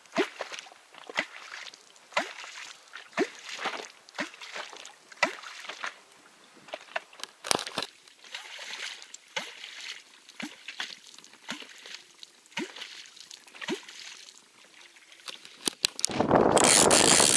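Catfish kvok struck into the water about once a second to call catfish; each stroke is a hollow gulping plop that falls in pitch. About a second before the end, a loud steady rushing noise cuts in abruptly.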